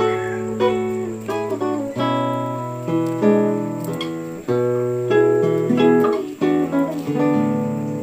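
Background music: an acoustic guitar playing plucked notes and chords, each one struck and left to fade, with a new one about every second.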